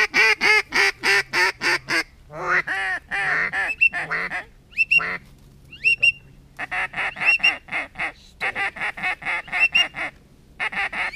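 Duck quacks in fast, even runs of about four or five a second, with a few drawn-out quacks in the middle and short rising whistle notes mixed in.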